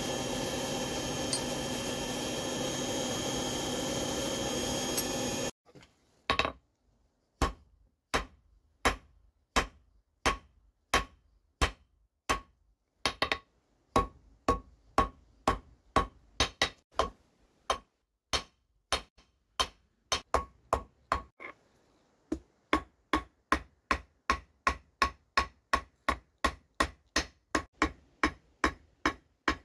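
Hammer blows on red-hot steel on an anvil, forging a knife blade: a steady run of sharp strikes with a short ring. They come about one and a half a second at first and quicken to about two a second near the end. Before the hammering starts there are about five seconds of steady noise that stops abruptly.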